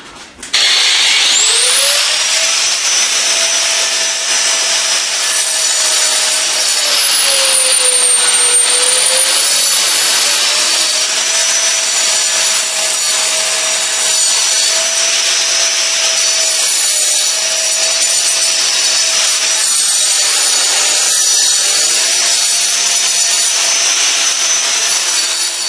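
Angle grinder spinning up about half a second in, then cutting into a concrete threshold with a steady high whine and grinding hiss. The pitch sags briefly a couple of times as the disc is loaded.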